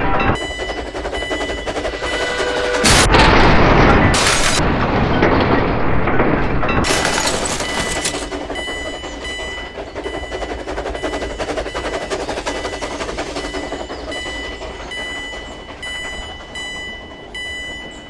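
Dubbed crash and explosion sound effects: a loud blast about three seconds in and another burst a few seconds later, then a steady crackling noise with a repeating high ringing that slowly fades.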